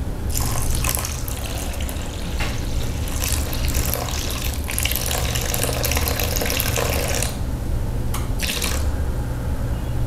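Yeast water pouring from a glass jar into a stainless steel mixing bowl in a steady trickle, with a short break about seven seconds in before it trickles on.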